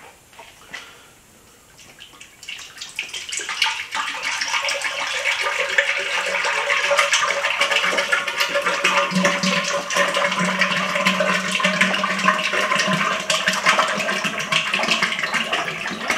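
Liquid poured from a plastic jug into a tall aluminum cylinder, a steady splashing pour that starts about three seconds in and keeps going.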